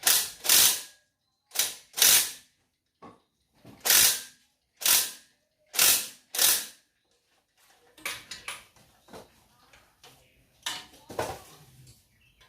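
Hand socket ratchet wrench being swung in short strokes, each a quick rasp of clicks, as it turns engine bolts during a 4D56 engine rebuild. About nine loud strokes come in the first seven seconds, then a few softer ones near the end.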